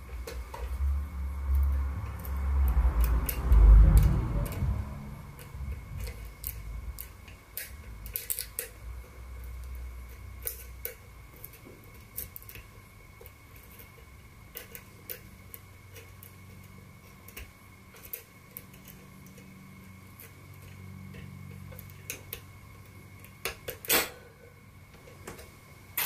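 Lockpick and tension wrench working in the keyway of a Lemen 60 mm pin-tumbler padlock held in a bench vise: many small, irregular metallic clicks and scrapes, with a louder click near the end. Low knocks and rumbling from the hands handling the lock and vise in the first few seconds.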